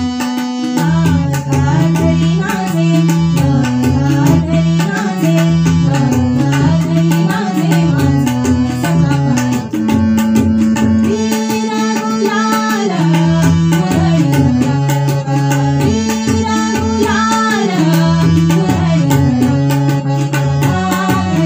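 A woman singing a Marathi devotional abhang in a slow, ornamented melody, over a backing of tabla and a melodic accompaniment.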